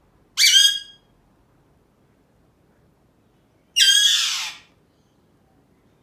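Alexandrine parakeet giving two loud squawks about three seconds apart. The first is short; the second is longer and harsher and falls in pitch as it ends.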